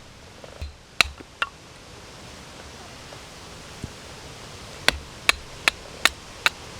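Sharp knocks of wood being struck. There are two close together about a second in, then a steady series of about two or three a second from about five seconds in, over a steady hiss.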